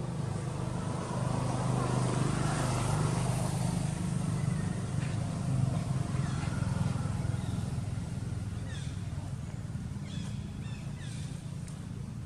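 A motor engine running steadily in the background. It grows louder about a second in and eases off again after about seven seconds.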